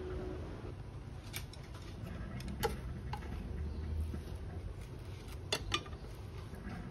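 Wooden chopsticks tapping and scraping against a nonstick frying pan as they push an absorbent sheet through the oil, about five sharp clicks over a low steady hum.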